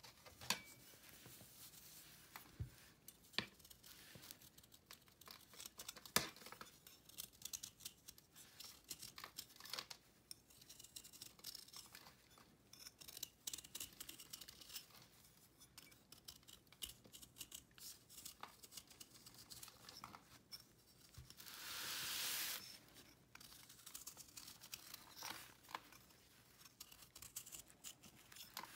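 A small kitchen knife shaving a dried, chalky cake of cleaning paste held in the hand: faint, close scraping strokes and crumbly crackles as flakes come off. There is a longer, louder stretch of scraping about three-quarters of the way through.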